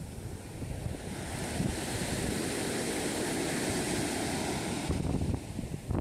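Surf breaking and washing up a sandy beach, with wind buffeting the microphone. The rush of water swells about a second in and eases near the end.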